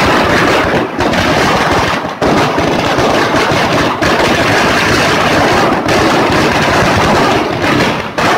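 A string of firecrackers going off on the ground, a rapid, continuous rattle of bangs, with a few brief lulls.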